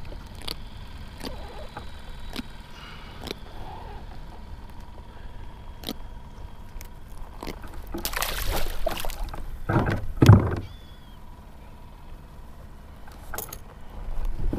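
Small clicks and knocks of gear being handled on a kayak. About eight seconds in comes a splashing rush as a jack crevalle is released over the side on a lip gripper, followed by two heavy thumps.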